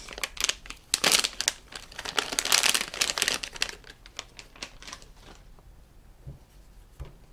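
Squishy-toy packaging crinkling and tearing as it is opened, dense rustling for about five seconds, then quieter with two soft knocks near the end.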